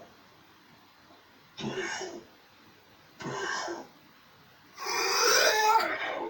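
A 13-year-old pit bull coughing in three bouts, the last the longest and loudest.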